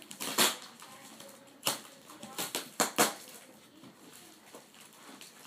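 A cardboard shipping box being torn open by hand: a series of short, sharp rips of cardboard, most of them in the first three seconds, then quieter rustling.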